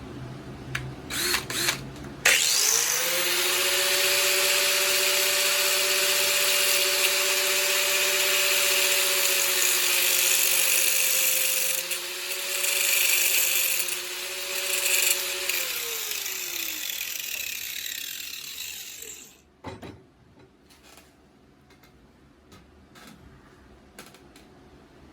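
An electric power tool gives a few short blips, then starts up about two seconds in. It runs with a steady whine and a loud hiss for about thirteen seconds, then winds down and coasts to a stop. A single knock follows.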